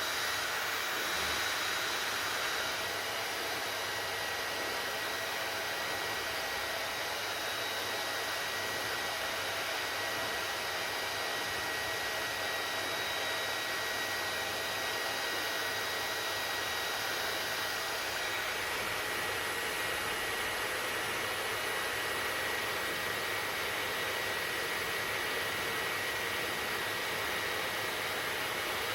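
Hair dryer running steadily: an even rush of blown air with a thin, steady high whine from the motor and fan.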